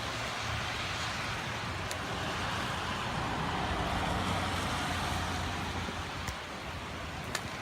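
Heavy squall-line rain with gusty wind, a steady rushing hiss that swells to a peak about four seconds in and then eases, with a few sharp drip ticks near the end.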